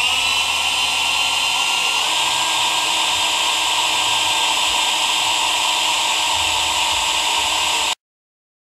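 Handheld electric drill running steadily with a high motor whine while boring into an aluminum skull shift knob; the pitch steps up slightly about two seconds in, and the sound cuts off suddenly near the end.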